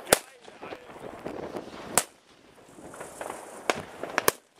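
Firecrackers going off as separate sharp bangs: one at the start, one about two seconds in, and a quick run of three near the end. Between them is the din of distant fireworks.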